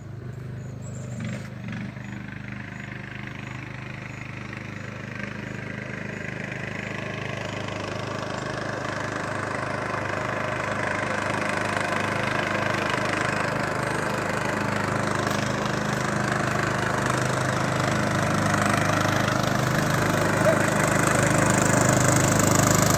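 Riding lawn mower's Briggs & Stratton engine running at a steady speed, growing steadily louder throughout.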